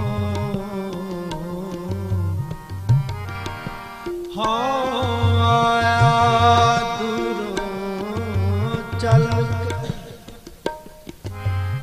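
Sikh kirtan: harmoniums holding a sustained melody over tabla, the bayan's deep bass strokes bending in pitch every few seconds. A man's voice sings through the middle, and the music thins out briefly near the end.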